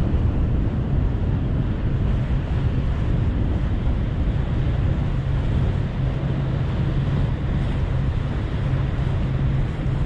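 Wind buffeting the microphone and water washing around a small motorboat's hull, over a constant low engine drone.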